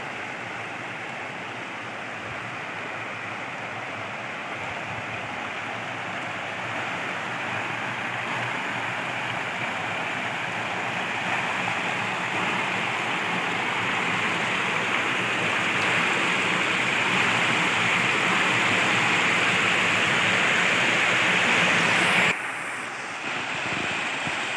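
Fast, shallow water rushing over a broad rock slab at the head of a waterfall: a steady rushing hiss that grows gradually louder, then drops suddenly about 22 seconds in.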